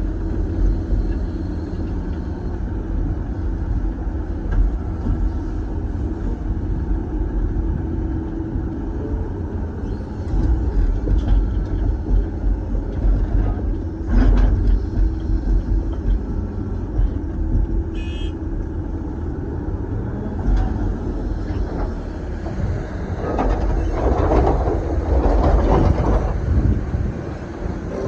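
Doosan DX420LCA excavator's diesel engine and hydraulics running steadily under working load, heard from inside the cab. A sharp knock about halfway, and a louder, rougher stretch in the last few seconds.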